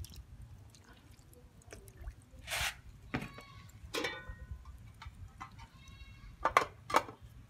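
An aluminium pot lid being set on an aluminium cooking pot, clanking sharply twice near the end, after a few scattered clinks and handling sounds from an enamel cup over the pot.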